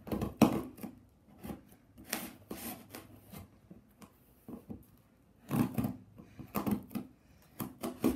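Scissors cutting plastic packing straps and scraping at a cardboard box's taped seam: irregular snips, scratches and knocks on the cardboard, the loudest cluster about two-thirds of the way through.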